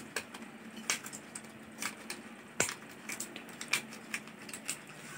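Packaging of a digital thermometer being peeled and torn open by hand: scattered faint crinkles and sharp plastic clicks.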